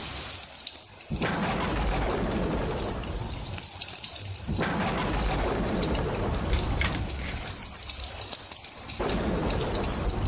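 Steady heavy rain, a dense even hiss, with a low rumble underneath that drops away briefly twice.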